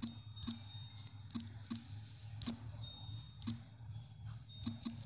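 Key presses on a smartphone's on-screen keyboard as a word is typed: a string of light clicks, one per letter, unevenly spaced, with a quick run of them near the end.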